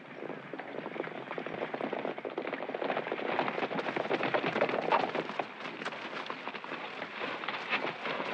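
Hoofbeats of a group of horses galloping over dry dirt, a dense clatter that grows louder over the first few seconds as they approach.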